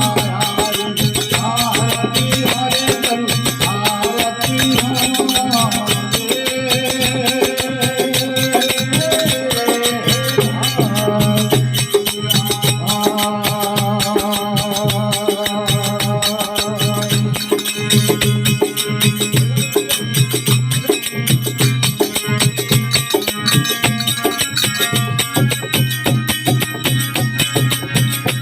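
Devotional folk aarti music: fast, steady jingling percussion over a held low drone, with a wavering melody line above.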